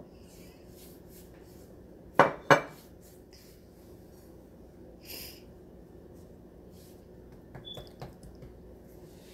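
Two sharp clinks, about a third of a second apart, of a glass oil bottle being set down on the countertop. A short rustle follows, then a few light taps and clicks as hands work the paratha dough.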